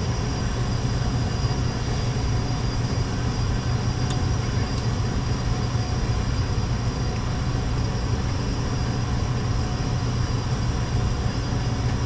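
Steady industrial machinery drone: a low, even rumble with a hum.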